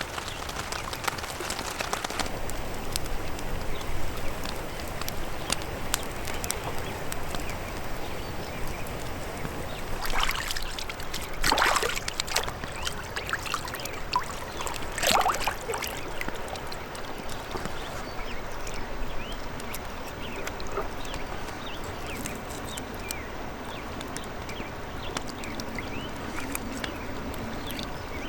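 Water trickling and sloshing, with a few louder splashes about ten, eleven and fifteen seconds in.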